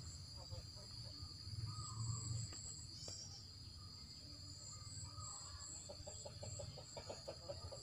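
Faint chicken clucking in short runs over a steady high-pitched insect drone, with a low rumble underneath.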